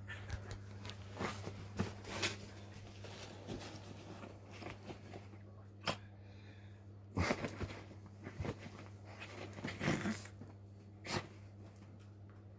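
Dog playing roughly with a toy: short snorts, bites and scuffling noises in irregular bursts, the strongest about seven and ten seconds in, over a steady low hum.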